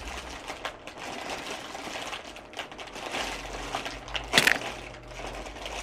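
Cereal packaging being opened and handled: irregular crinkling and rustling, with one loud sharp crackle about four and a half seconds in.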